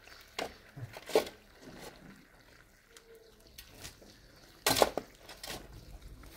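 Shovel scraping and digging into stony earth in a few short strokes. The loudest come about a second in and near five seconds in.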